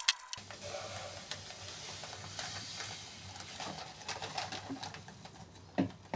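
Table salt pouring from its plastic bag into a plastic storage canister: a steady hiss of running grains. It begins with a snip as scissors cut the bag open and ends with a few sharp taps and crinkles of the bag.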